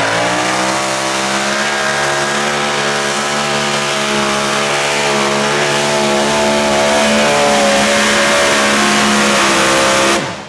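Mini modified pulling tractor's engine held at full throttle while dragging the weight-transfer sled, a steady high-revving race-engine note that cuts off abruptly near the end.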